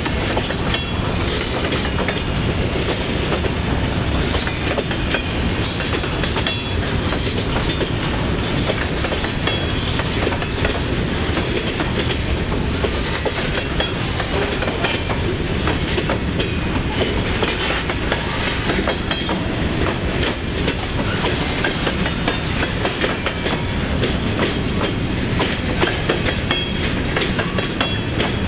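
Freight cars (covered hoppers and boxcars) rolling past at close range: a steady rumble with wheels clacking over rail joints and a few short, high squeaks.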